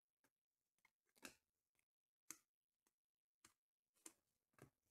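Glossy trading cards being flipped through by hand: about eight faint, separate slides and snaps as cards are pulled off a stack one at a time.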